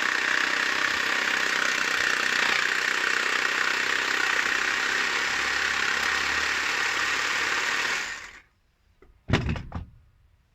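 An electric power tool runs steadily on an old metal pipe fitting, then cuts off about eight seconds in. A short knock follows about a second later.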